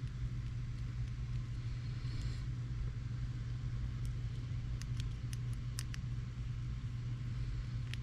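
A few faint, sharp clicks of a screwdriver and small metal pistol parts being handled, over a steady low background hum.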